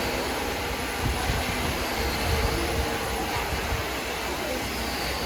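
Steady mechanical noise with a low rumble, from heavy woodworking machinery running.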